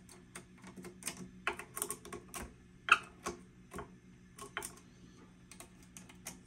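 A chopstick-style probe tapping and poking components and wiring inside a powered tube guitar amp chassis: a run of irregular sharp clicks, the loudest about three seconds in, over a low steady hum. This is a tap test to agitate suspect solder joints and provoke an intermittent fault or microphonics.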